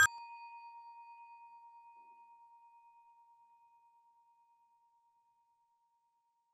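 A bell's ring dying away just after the ringing stops: one steady tone with a slight wobble, fading out over about three seconds.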